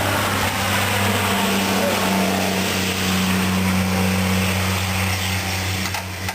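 A machine running steadily: an even low hum with a hiss above it, a little quieter near the end.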